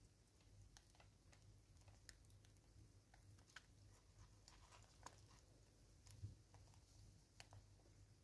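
Near silence with faint, irregular clicks from a vervet monkey picking seed out of a plastic bottle feeder and chewing.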